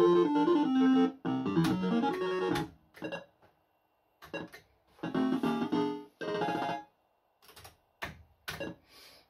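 Barcrest MPU4 'Stop the Clock' fruit machine playing its electronic jingles: short melodic phrases of about a second each, broken by brief silences, with a few short blips in the second half.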